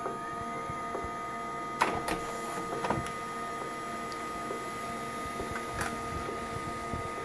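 HP LaserJet 1200 laser printer running a print job: a steady whine from the laser scanner motor, which rises briefly near the start, under the hum of the paper feed, with a few sharp clicks as the page is drawn through. The scanner motor has been freshly oiled, and there is no squeal: the printer is working again.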